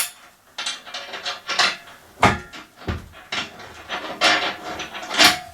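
Steel nuts and spring washers being fitted onto the bolts of a hydraulic press frame by hand: irregular metallic clicks, clinks and scraping, with a few sharper knocks.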